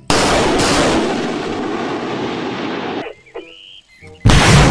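Truck-mounted multiple rocket launcher firing: a sudden blast and the rushing roar of rockets leaving the tubes, dying away over about three seconds. A brief high tone follows, then a second firing starts near the end.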